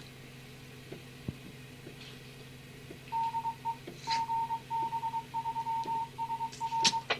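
A tone beeping over a scanner-received radio channel: a low hum and hiss at first, then from about three seconds in one steady high beep keyed on and off in short and long pieces, ending in a sharp click.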